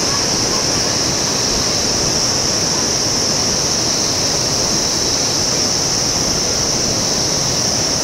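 Steady rushing noise, unchanging, with a constant high-pitched drone on top.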